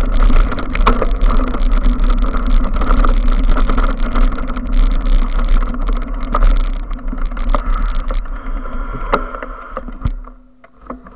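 Mountain bike riding over a dirt trail, heard from a camera mounted on the bike: a steady rumble of tyres and wind on the microphone, with frequent rattling clicks from the bike over bumps. It fades as the bike slows and drops away about ten seconds in, leaving a few last clicks.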